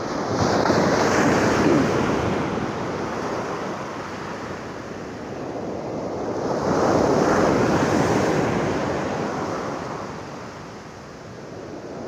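Sea surf breaking on the shore: a steady rush that swells and fades, with two surges about six seconds apart.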